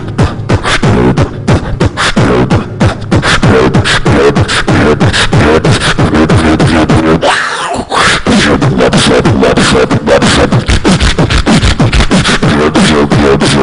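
Beatboxing: fast, continuous mouth percussion, sharp clicks and snares over short falling bass kicks, with a brief break about seven seconds in before the beat picks up again.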